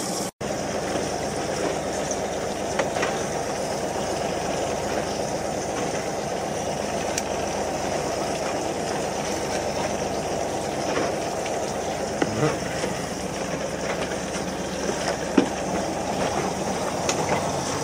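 Fishing boat's engine idling steadily, with wind and sea noise. The sound drops out for an instant just after the start, and a few faint knocks come later.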